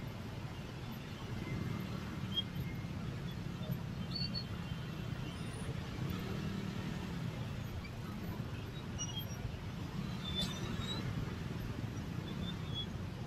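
Many small motorcycle and scooter engines idling in a packed traffic jam, a steady low hum, with one engine rising and falling in pitch about six seconds in. A short sharp click about ten seconds in.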